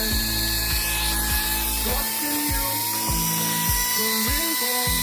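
Background music with a steady beat and long held synth notes.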